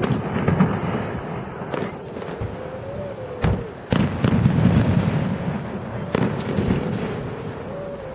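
Fireworks shells bursting overhead: about five sharp bangs a second or two apart, each trailing off in a long low rumbling echo.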